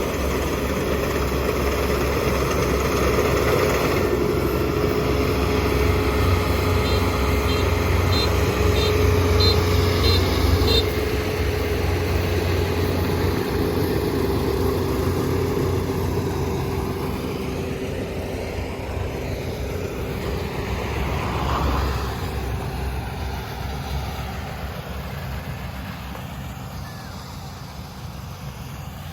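Kubota ER470 combine harvester running steadily, a continuous engine drone with a steady hum. About a third of the way in, a short run of high beeps repeats about twice a second. The sound grows gradually fainter over the second half.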